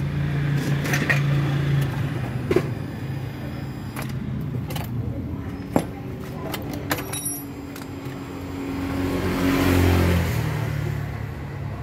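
Ignition key clicking as it is switched on and off, while the scooter's idle air control valve hums from its stepper motor driving the plunger in and out. There are a few sharp clicks, and a low rumble swells and fades near the end.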